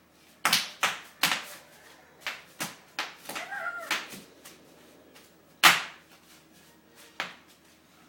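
Bubble wrap bubbles popping under a toddler's jumping feet: about nine sharp, irregularly spaced pops, the loudest a little past halfway. A brief high-pitched child's voice sounds near the middle.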